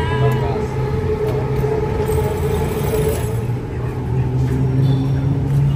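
Road traffic, with a motor vehicle's engine running close by in a steady low hum.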